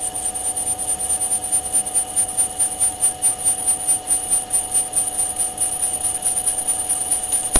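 Electric drill running with an M35 cobalt (HSS-Co) twist bit cutting into a steel wrench, chips coming off. It makes a steady high whine whose loudness pulses several times a second, and it stops abruptly at the very end.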